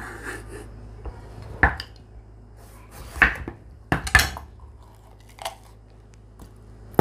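Chef's knife knocking on a wooden cutting board as it cuts through a red bell pepper: five separate sharp knocks, two of them close together about four seconds in.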